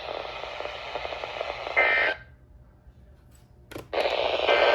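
Emergency Alert System data bursts (SAME tones) through a weather radio receiver: a harsh electronic buzz for about two seconds that cuts off suddenly. A short near-silent gap and a click follow, then the buzz starts again near the end, marking the boundary between broadcast alert messages.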